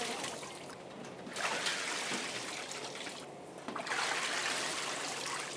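Water splashing and running in a tank, with two brief lulls. Loudest from about four seconds in, as a stainless wire basket of packed pork is lifted and water pours off it.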